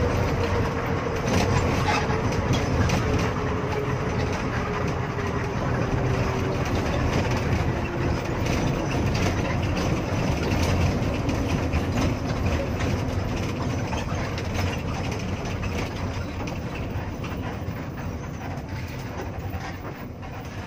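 Cabin noise inside an intercity coach: engine and road rumble with rattles. An engine whine falls in pitch over the first dozen seconds as the bus slows off the highway into a rest area, and the noise eases toward the end.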